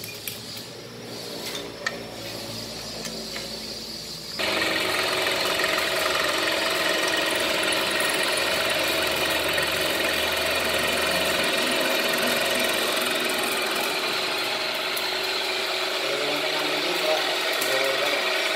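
A machining power tool, used for cutting valve reliefs into a piston, starts suddenly about four seconds in and runs steadily with a whine, after a few light clicks.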